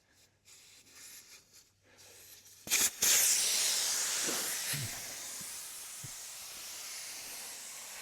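A few small handling sounds, then about three seconds in the tractor tire's valve is opened and compressed air rushes out in a loud steady hiss that eases slightly and keeps going: the beet-juice-ballasted tire being deflated.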